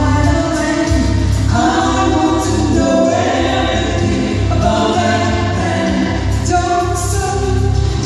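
A mixed vocal trio, one man's and two women's voices, singing a gospel song in harmony through microphones, with sustained held notes over an accompaniment that has a pulsing low bass.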